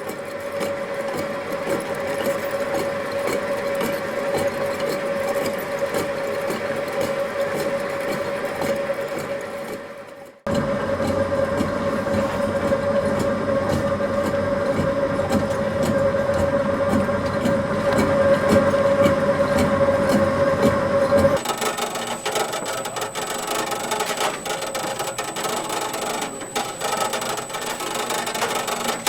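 Flour-mill machinery running steadily, a continuous hum with a constant tone and a rattling rhythm. There is a brief dip and cut about ten seconds in. About 21 seconds in it gives way to a different machine with a thin high tone and rapid clicking.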